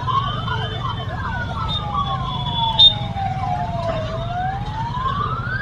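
Siren of the rally's escort vehicle wailing, its pitch sweeping slowly up and down with a second overlapping sweep, over a steady low hum of motorcycle engines.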